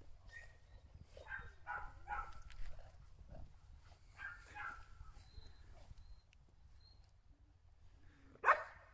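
A chow chow dog making a few short, faint vocal sounds while playing, with one louder, sharper one near the end.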